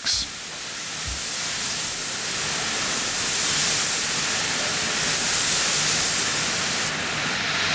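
Paint spray gun giving a steady hiss as lacquer is sprayed onto the aircraft's skin, growing a little brighter near the end.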